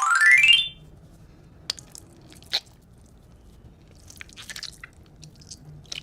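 A quick rising whistle-like cartoon sound effect, then soft scattered crunching clicks over a low hum.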